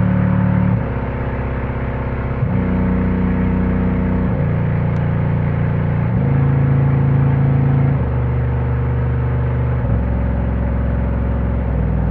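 Bass-heavy music played loud through a subwoofer driven by a UcD full-bridge class-D amplifier. Sustained deep bass notes change pitch about every two seconds.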